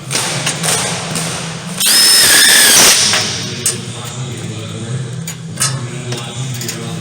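Power drill run once for about a second, about two seconds in, with a high motor whine, while installing ductwork.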